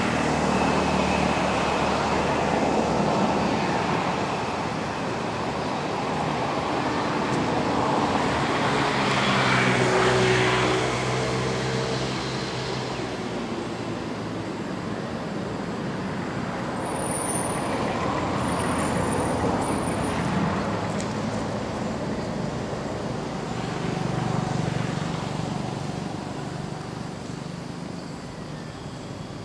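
Road traffic: motor vehicles passing, with the engine and tyre noise swelling loudest about ten seconds in and again near the end.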